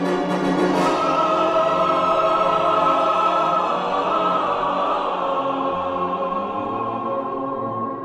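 Orchestral easy-listening music with voices, long notes held over a full string-and-choir sound.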